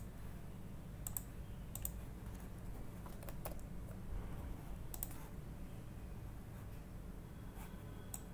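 Scattered clicks of a computer mouse and keyboard, about seven single clicks spread unevenly over several seconds, over a low steady hum.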